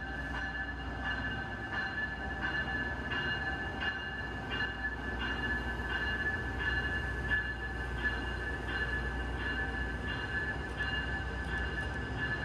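Brightline passenger train locomotive's bell ringing steadily, about two strokes a second, over the low rumble of the train's diesel engine.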